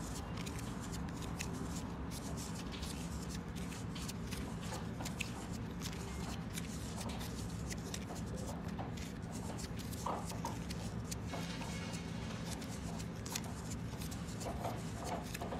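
PTFE thread seal tape being wound by hand onto a faucet's threaded fitting: soft rustling with many small scattered clicks, over a steady low hum.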